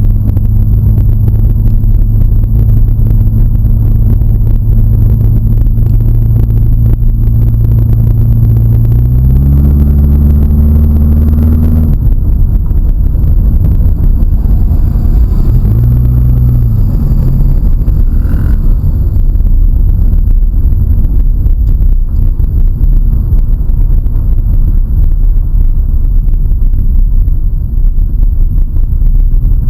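Car engine running steadily, then revving up in pitch about nine to twelve seconds in and dropping away, with a brief rev and fall a few seconds later, over a heavy low rumble.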